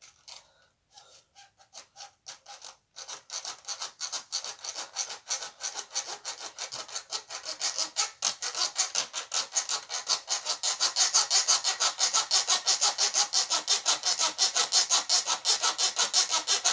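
Hacksaw sawing, most likely into metal: a few hesitant strokes, then quick, regular back-and-forth rasping strokes that grow louder and stop suddenly near the end.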